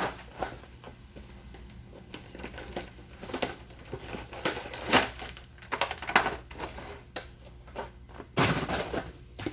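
Toy packaging being opened by hand: irregular crinkling, crackling and rustling of plastic and cardboard, with a louder burst of rustling near the end.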